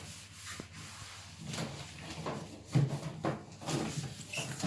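Sponge scrubbing and wiping the inside of a microwave in short, uneven strokes, about two a second.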